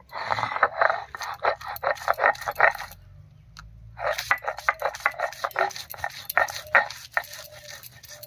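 Stone roller (nora) grinding on a stone slab (shil): quick back-and-forth strokes, about four a second, crushing fried taro flowers and whole dried red chillies into a paste. The grinding stops briefly about three seconds in, then carries on.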